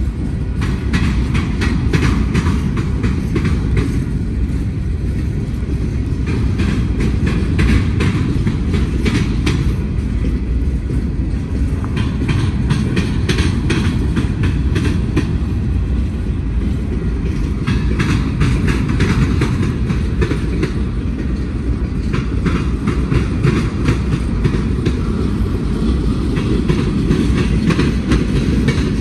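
Freight train of boxcars, centerbeam flatcars and tank cars rolling past close by: a steady heavy rumble of the cars, with the wheels clicking over rail joints in groups every few seconds.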